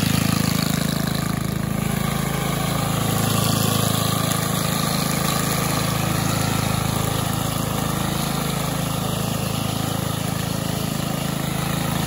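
Cub Cadet WST 100 wheeled string trimmer's 140cc single-cylinder engine running steadily, with no revving or load.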